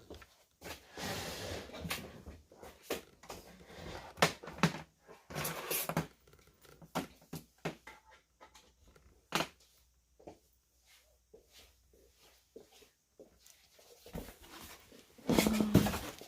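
Handling noise from unpacking: scattered clicks, knocks and rustling as plastic parts and packaging are moved about, quieter for a few seconds in the middle and busier again near the end.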